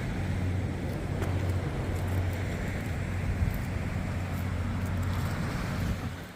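A road vehicle driving: a steady low engine hum with tyre and road noise, fading down near the end.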